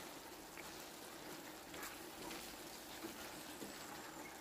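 Chicken breast, potato and carrot in tomato sauce faintly sizzling and bubbling in a frying pan while a wooden spatula stirs it, with a few soft scrapes of the spatula.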